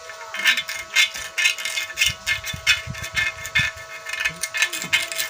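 Metal tool scraping rust and scale out of the seal-seat recess of a water pump housing, in quick, irregular strokes, a few a second, starting about half a second in. This is the recess being cleaned before a new ceramic seal seat is fitted.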